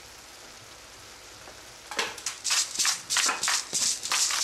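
Ground beef and tomato mixture sizzling faintly in a cast iron skillet. About halfway in, quick rhythmic rasping strokes start, about three a second, louder than the sizzle.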